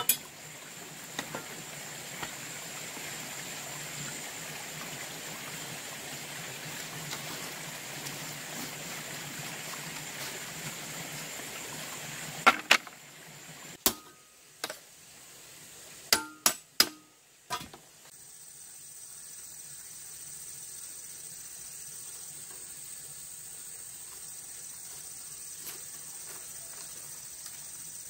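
Steady background noise, then a run of about eight sharp knocks over some five seconds, after which it turns quieter with a faint steady high-pitched tone.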